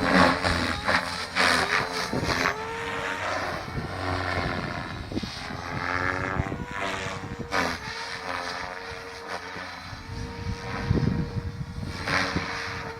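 Electric RC helicopter, a Goblin 700 Competition with a three-blade main rotor, flying: a steady whine from its motor and rotor, with tones that bend up and down as it manoeuvres. Low rumbling gusts of wind on the microphone come and go.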